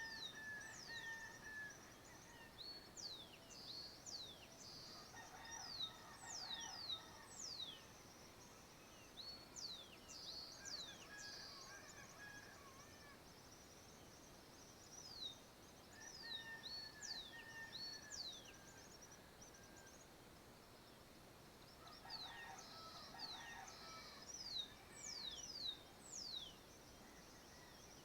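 Rural dawn chorus: many birds giving quick, high, downward-sweeping call notes over a steady high trill. A distant rooster crows about four times.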